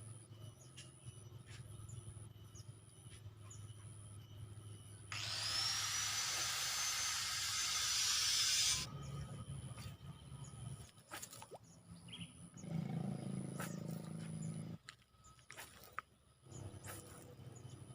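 Fishing line running off a reel during a cast: a hissing whirr with a whine that rises and then holds. It lasts a little under four seconds, starting about five seconds in, growing louder, and stopping abruptly. Scattered clicks and a low rattle follow, consistent with the reel being worked.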